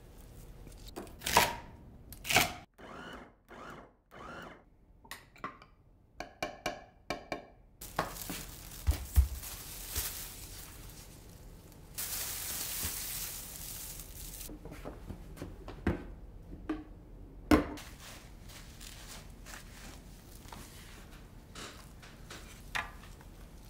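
Kitchen preparation sounds: a few sharp knocks in the first seconds and a run of light taps. Then a plastic bag rustles and crinkles for a couple of seconds as it is pulled open around a block of minced meat, followed by two more knocks.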